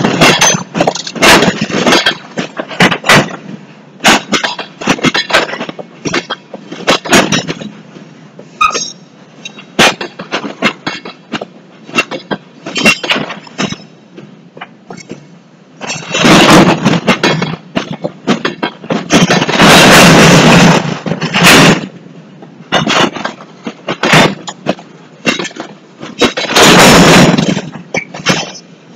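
Covered hopper cars of a freight train rolling past at close range: an irregular run of sharp clanks and bangs from the wheels and running gear. Three longer, louder stretches of rattling noise come about two-thirds of the way in, again shortly after, and near the end.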